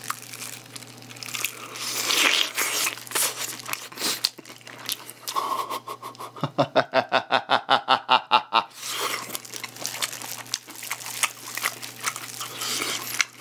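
Biting into and tearing the crisp coating and meat of a sauced fried-chicken drumstick, with crunching and chewing and the crinkle of clear plastic gloves. Midway there is a louder, rapid run of about a dozen evenly spaced pulses lasting a couple of seconds.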